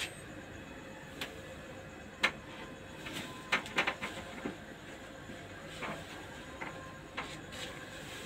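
Soft clicks, knocks and cloth rustles of a person moving through the positions of prayer on a prayer mat, going from bowing down to kneeling prostration, over a steady low room hiss. The sharpest knock comes about two seconds in, with a cluster of them near the middle.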